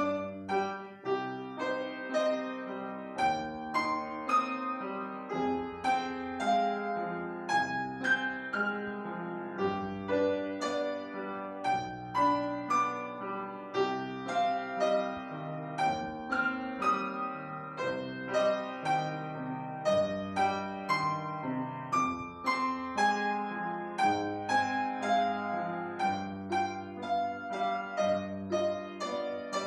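Piano music: a flowing melody of struck notes, several a second, over held low bass notes.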